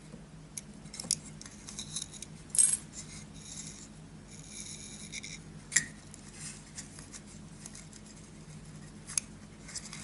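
Small scattered clicks and light metallic clinks from fingers handling a miniature brass fitting and fine chain while knotting rigging thread, with a brief scratchy rasp about four seconds in. A steady low hum runs underneath.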